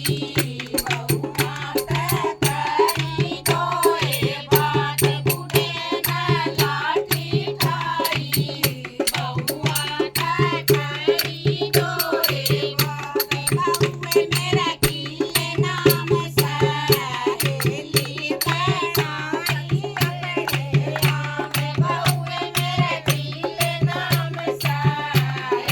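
Haryanvi folk song: singing voices carry a wavering melody over fast, steady hand-drum and rattle percussion.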